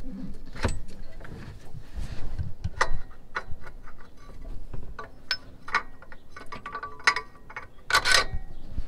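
Scattered small metal clicks and clinks as a bolt and nut are fitted by hand through the lower mount of a new Fox 2.0 shock absorber on a truck's front axle, with a louder rattle about eight seconds in.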